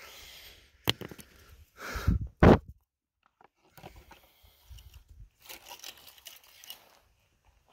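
Crunching on dry, stony ground, with a sharp click about a second in and two loud thumps around two seconds in, then irregular footsteps crunching on gravel.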